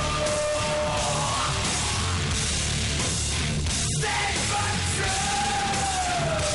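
Heavy rock background music with a steady driving beat and a long held melody line that slowly glides in pitch.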